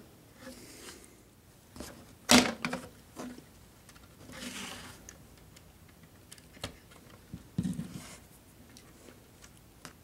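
Small flush cutters snipping the plastic ties of model railroad track, back-cutting them at the rail ends. A handful of sharp clicks are spread through it, the loudest about two and a half seconds in, with a soft rustle of handling around the middle.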